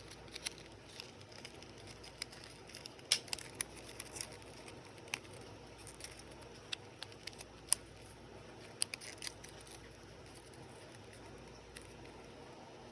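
Sparse light clicks and taps, a dozen or so scattered irregularly, from small objects being handled.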